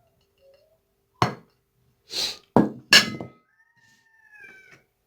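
Kitchenware knocking and scraping against a tagine as spices go in: four sharp knocks and a brief scrape in quick succession. Near the end comes a faint, drawn-out, high-pitched cry that falls slightly.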